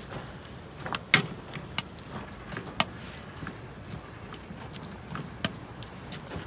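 Utensil stirring cabbage and meat in a disposable aluminium foil pan, scraping and knocking against the thin foil in scattered sharp clicks, the loudest about a second in.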